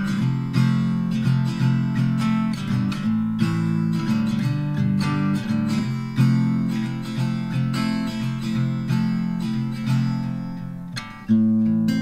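Background music: acoustic guitar strumming and picking chords, dipping briefly near the end before a loud new strum.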